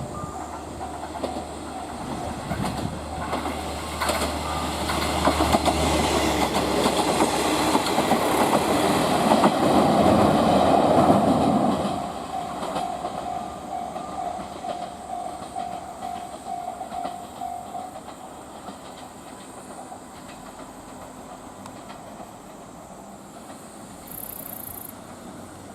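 A train on the San'in Main Line running through the station, its wheels clicking over the rail joints. It grows louder to a peak about 11 seconds in, drops off sharply a second later, and a steady tone lingers for several seconds more as it fades.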